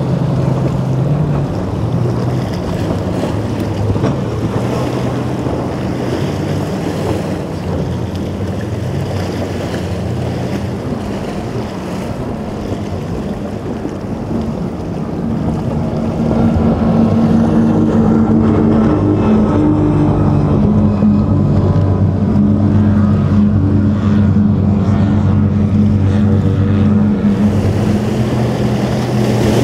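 Motorboat engines running through choppy water, with waves splashing and wind buffeting the microphone. About halfway through the engine sound gets louder and its pitched drone comes through more clearly.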